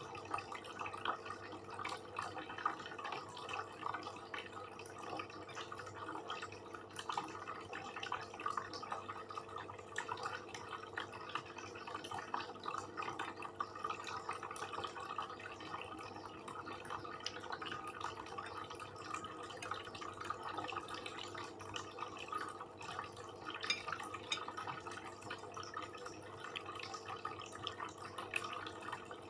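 Close-up wet chewing and mouth smacking of a person eating, a dense run of small squelches and clicks.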